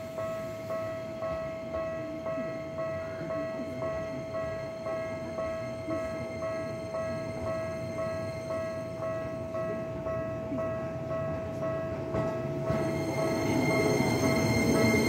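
Japanese level-crossing alarm bell ringing steadily, about two clangs a second, over the rumble of a train. The train noise grows louder near the end.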